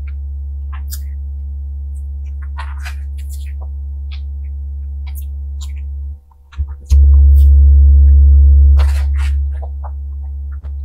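A loud, steady low hum with fainter overtones. It cuts out for a moment about six seconds in, then comes back. Faint, short clicks of soft cake being eaten off a spoon are scattered over it.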